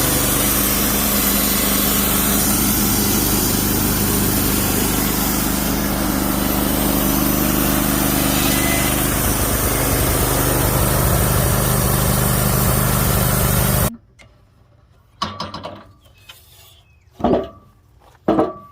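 A Wood-Mizer LT15 Wide portable sawmill runs steadily, its engine and blade going at an even pitch. About fourteen seconds in, the sound cuts off abruptly, and a few separate knocks and thuds follow.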